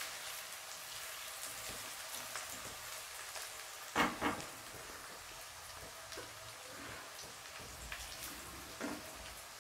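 Chopped garlic, onion and ginger sizzling in hot oil in an aluminium kadhai, a steady gentle frying hiss as the aromatics brown. The spatula knocks briefly against the pan about four seconds in and again near the end.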